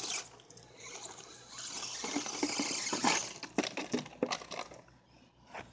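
An RC rock crawler's tyres crunching over loose gravel, a gritty hiss, followed by a few sharp clicks and knocks as the truck is grabbed by hand.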